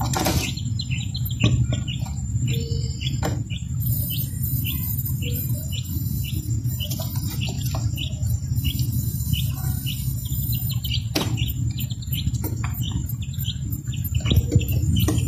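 Quail chick peeping repeatedly, short high peeps about twice a second, over a steady low hum.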